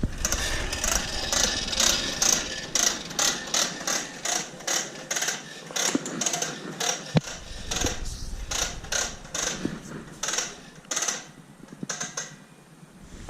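Hand socket ratchet clicking through quick repeated strokes, the pawl ratcheting on each back-swing; the strokes stop near the end.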